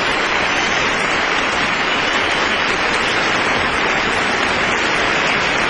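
Large theatre audience applauding, a steady, even wash of clapping.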